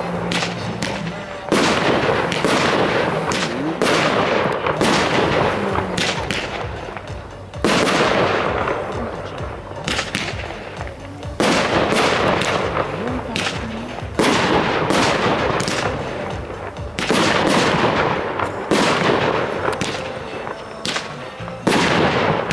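Lesli Golden Crown 30 mm firework battery firing its shots one after another, a sharp bang every two to four seconds, each trailing off into a hiss that fades over a second or two.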